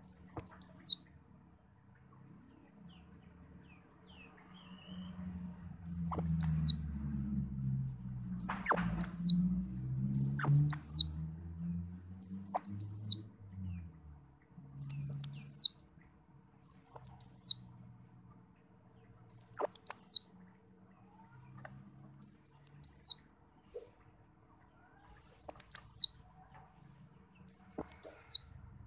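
Kolibri wulung sunbird calling: short, high bursts of quick falling notes, repeated about every two to three seconds after a pause near the start. A faint low rumble sits underneath for a while in the first half.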